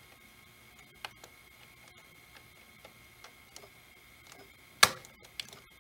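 Panasonic NV-870 VCR held in pause with its tape mechanism exposed: a faint steady high whine with scattered small ticks, then one sharp click about five seconds in, followed by a couple of lighter clicks.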